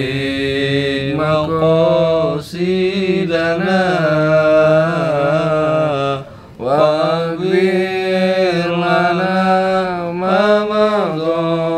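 A solo male voice chanting in long, ornamented held phrases, pausing for a breath about six seconds in.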